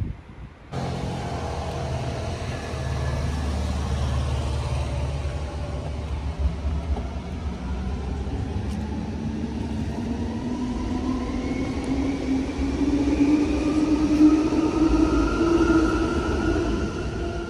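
A vehicle's steady low rumble, starting abruptly just under a second in, with a motor whine that rises slowly in pitch through the second half.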